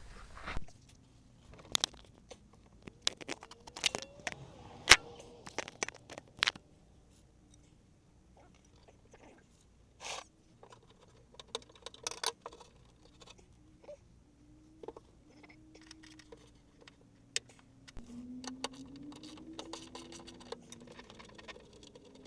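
Scattered clicks, knocks and scrapes of hand tools and fittings being worked while undoing the bolts that hold a car's automatic antenna in place.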